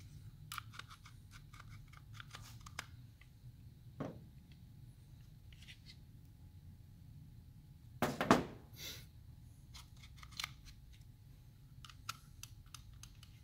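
Plastic parts of a Volvo I-Shift truck gear selector clicking and clattering as they are handled and pulled apart by hand, with a louder clatter about eight seconds in.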